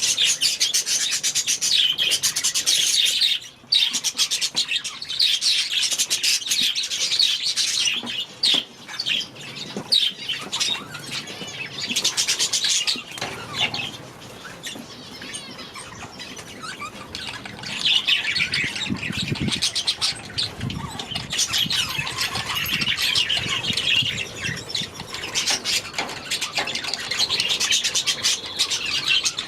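A flock of budgerigars chattering and warbling continuously, with a quieter lull about halfway through.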